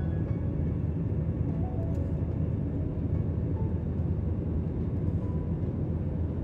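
Steady roar of a jet airliner cabin in flight, heard from a window seat beside the wing, with soft background music notes laid over it.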